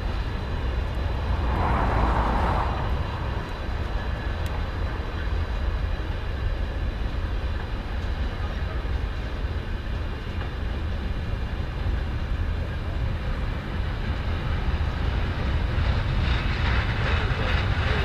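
Loaded freight train of gypsum box wagons rolling steadily past: a continuous low rumble of wagon wheels on the rails, with a brief swell of louder noise about two seconds in and again near the end.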